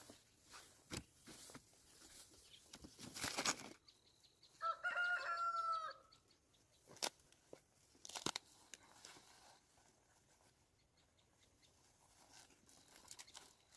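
A rooster crows once, a single held call of about a second and a half, about five seconds in. Scattered short clicks and rustles come before and after it.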